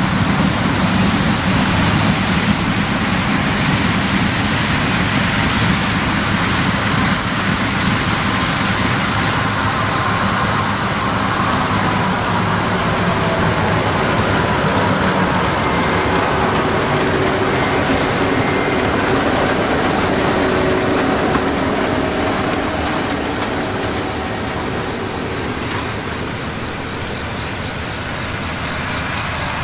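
Large diesel farm machinery running steadily, with a continuous engine and drivetrain noise that eases a little near the end.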